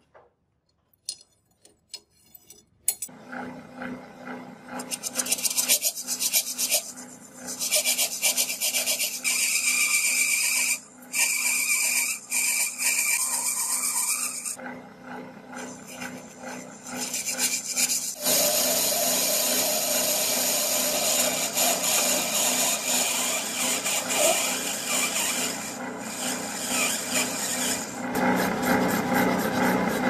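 After about three seconds of near silence, a metal lathe starts and runs with a steady hum. A cutting tool and then a hand file scrape against the spinning metal tube in long, harsh, hissing stretches.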